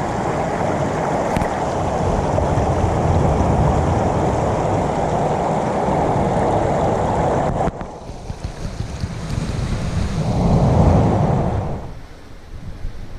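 Rushing noise of surf on a rocky shore, mixed with wind buffeting the microphone. It cuts off abruptly about two-thirds of the way through. In the quieter stretch after that, a single wave surges in and falls away.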